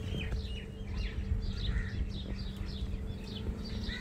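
Small birds chirping, a quick run of short falling notes several times a second, over low wind rumble and a steady hum.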